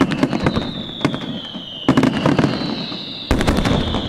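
Aerial firework shells bursting in three volleys, one at the start, one about two seconds in and one just over three seconds in. Each bang is followed by rapid crackling, over high whistles that fall slowly in pitch.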